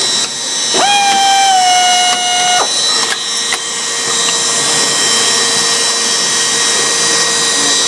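CNC drilling machine running with a steady high hiss; about a second in a pitched whine, such as a drill spindle under load, sounds for nearly two seconds and settles a little lower before cutting off, followed by a couple of light clicks.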